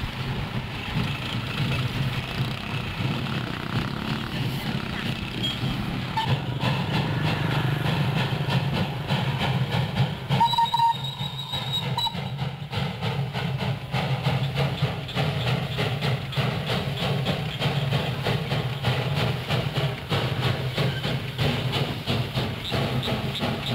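Small narrow-gauge sugar-mill steam locomotive working a train of loaded cane wagons, with rhythmic exhaust beats over the wagons' rattle. A brief high steady tone sounds about eleven seconds in.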